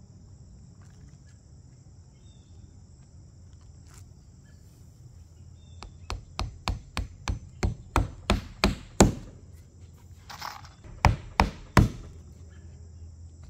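Hammer hand-driving roofing nails through an asphalt ridge cap shingle over a ridge vent. About six seconds in comes a run of about ten blows, three or so a second, each louder than the last. After a short pause come three more blows.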